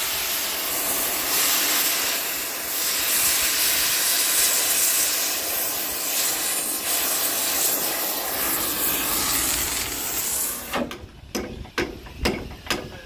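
Oxy-propane cutting torch hissing steadily as it melts the heads off steel rivets. About eleven seconds in the hiss cuts off, and a run of sharp clicks follows, about three a second.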